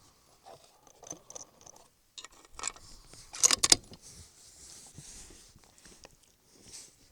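Metallic clicks and rattles from handling the rifle: a short run of clicks about two and a half seconds in, then a louder cluster around three and a half seconds in.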